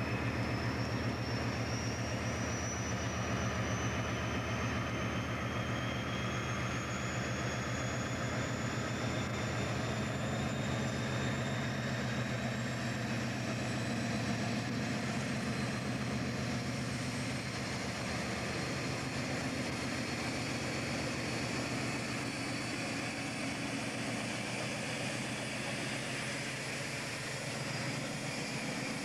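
Class 56 diesel-electric locomotive's Ruston V16 diesel engine running steadily as it hauls a freight train slowly past, a low pulsing engine note at an even level.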